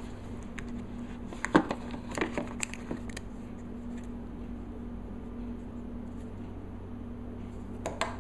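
Packaging and accessories from an iPad 2 box being handled: several light clicks and taps over the first three seconds, the sharpest about a second and a half in, then a steady low hum with a couple more clicks near the end.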